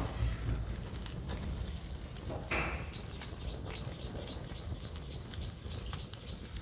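Burning matchsticks crackling in an open fire around a foil-wrapped fish: scattered small crackles and pops, with a brief hiss about two and a half seconds in, over a steady low rumble.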